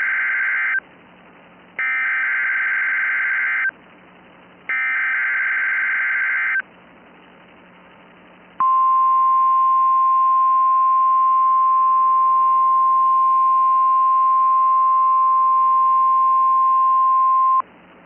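NOAA Weather Radio Emergency Alert System (SAME) header: the tail of one burst of buzzing data tones, then two more bursts of about two seconds each, a second apart. About halfway in comes the steady 1050 Hz warning alarm tone, held for about nine seconds, which cuts off just before the end.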